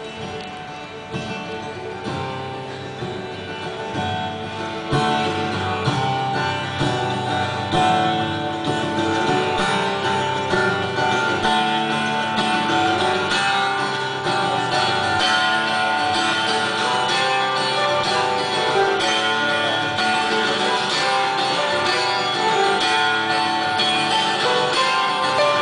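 Live band music led by guitar, with strummed and picked strings, growing louder about five seconds in.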